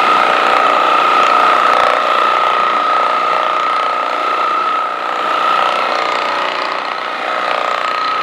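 Electric percussion massage gun running against the patient's back, with a steady motor whine over a buzz.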